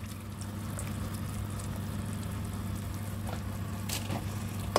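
Coconut milk pouring in a thin stream into a pan of fried mushrooms, carrot and onion simmering in a little broth, over a steady low hum. A few light clicks and a short clack near the end.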